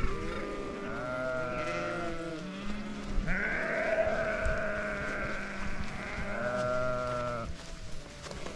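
A flock of sheep bleating, several long calls overlapping one another with hardly a break. The bleating dies down about a second before the end.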